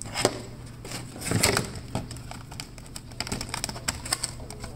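Clear plastic clamshell packaging being handled, crinkling with scattered clicks and rustles; the loudest handling comes about a second and a half in.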